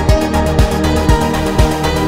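Background music: an electronic track with a steady kick-drum beat about twice a second under sustained chords.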